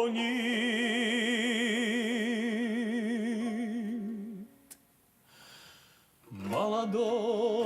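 Male voice singing a Russian folk song, holding one long note with a steady vibrato over garmon chords. The sound breaks off about four and a half seconds in for a short pause, and the singing and playing start again near the end.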